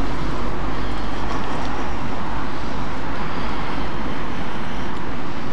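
Steady wind noise on the microphone of a moving e-bike, with a deep, even rumble.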